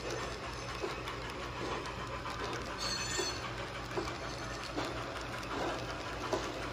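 HO scale model freight cars rolling along hand-laid track, their wheels clicking over the rail joints about once a second over a steady low hum.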